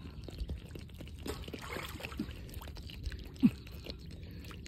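Water sloshing and trickling as someone works by hand in water, with a short plop about two seconds in and a louder one a little after three seconds.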